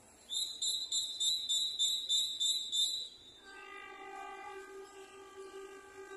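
A high-pitched pulsing beep, about three to four a second, for the first three seconds, then the approaching Alsthom diesel locomotive's horn sounding one long steady blast, quieter than the beeping.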